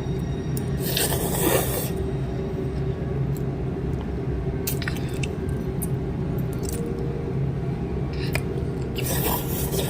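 Someone eating Buldak carbonara instant noodles: two noisy slurps about a second long, one near the start and one near the end, with a few small clicks and quiet chewing between, over a steady low hum.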